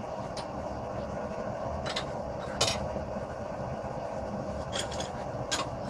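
Steady rushing of a running forge, with about four sharp metal clinks as the hot bar and tools are handled at the vise, the loudest a little over two and a half seconds in.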